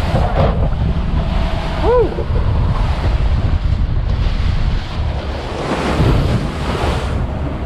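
Center-console boat (a 2019 Sea Hunt BX 22 BR) running fast over open ocean: wind buffeting the microphone and water rushing along the hull, steady and loud. A short tone rises and falls about two seconds in.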